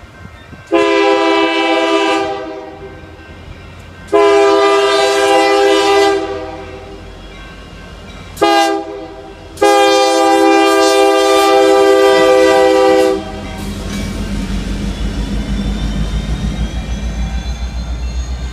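A Union Pacific diesel locomotive's air horn sounding the grade-crossing signal of long, long, short, long blasts. The low rumble of the locomotive follows as it reaches the crossing.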